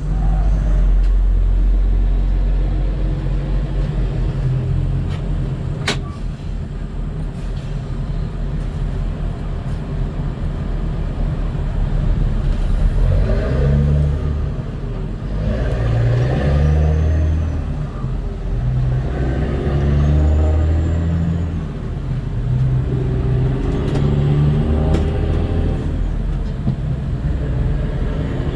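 Tow truck engine running steadily while its winch slowly pulls a disabled van, left in neutral, up onto the truck. There is a sharp click about six seconds in, and some uneven straining sounds in the second half.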